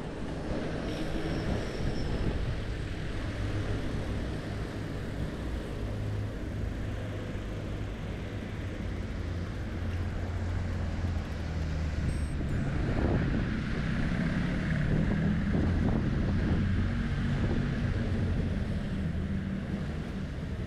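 Wind buffeting a bicycle-mounted action camera's microphone over the rumble of a bicycle ridden along a street. A low hum joins in about thirteen seconds in.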